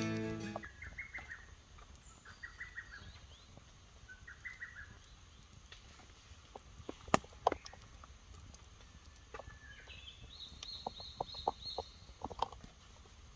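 Birds calling: short, rapid trills repeated a few times, then a quick run of higher chirps later on, with scattered sharp clicks midway and near the end.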